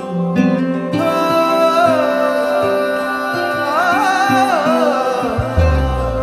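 Background music from a Punjabi pop song in a passage without lyrics, with a melody line that bends up and down about halfway through. A deep steady bass note comes in near the end.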